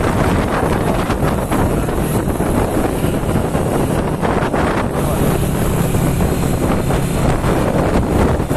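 Wind buffeting the microphone on a moving motorcycle, with the motorcycle engine running underneath; a steady low engine tone comes through more clearly from about halfway in.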